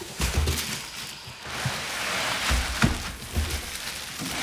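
Handling noise of a wooden amp cabinet being turned over and unwrapped: several dull thumps and knocks over rustling packaging.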